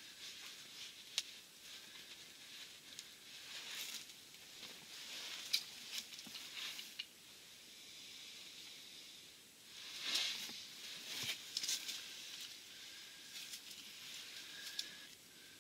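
Fabric rustling in uneven bursts as someone shifts close to the microphone, with a few sharp small clicks and taps.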